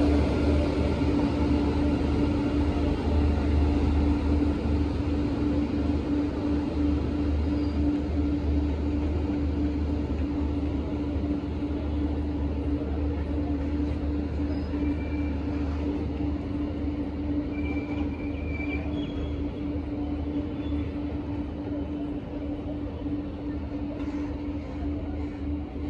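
Container freight train hauled by a WAG-9 electric locomotive, its wagons rolling past with a steady low rumble and a constant hum, getting slowly quieter as the train pulls away.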